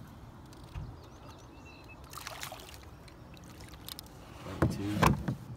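Water splashing as a hooked bass thrashes at the surface beside the boat, with a louder burst of splashing near the end.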